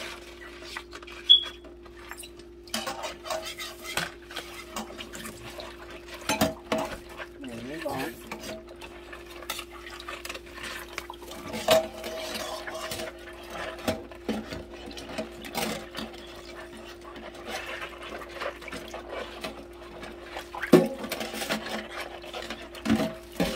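Stainless steel surgical instruments clinking and scraping against one another and the steel sink as they are scrubbed with a brush in shallow water, with sharp metallic knocks here and there. A steady low hum runs underneath.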